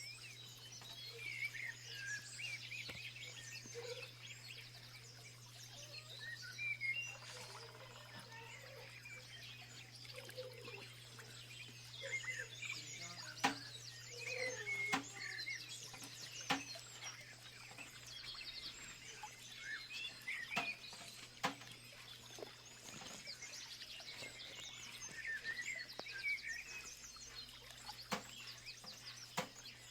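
Several small birds chirping and trilling, with calls overlapping throughout. Under them runs a steady low hum, with occasional sharp clicks.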